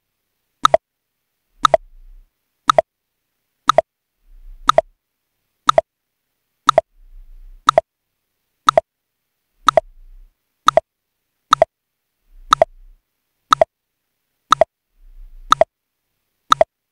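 Clock-tick sound effect of a countdown timer: one sharp tick each second, evenly spaced, with a faint low thud under some of them.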